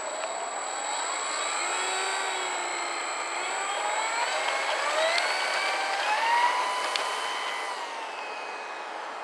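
HobbyKing Pietenpol Air Camper v2 RC model plane's electric motor and propeller whining, rising in pitch as it throttles up through the takeoff roll and climb-out, then fading near the end as the plane flies away.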